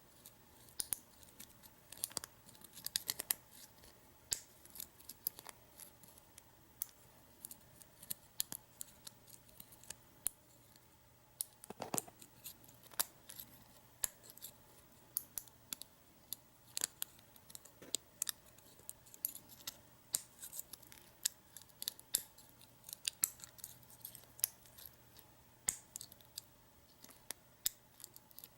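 Lock picks and a tension tool working inside a removed padlock cylinder: irregular small metallic clicks and scrapes, a few sharper taps among them.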